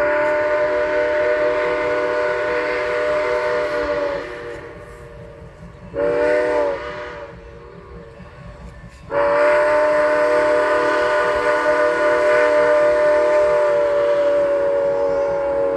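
Steam locomotive whistle blowing a chord of several steady tones as the train approaches: a long blast of about four seconds, a short blast about six seconds in, then another long blast of about six seconds.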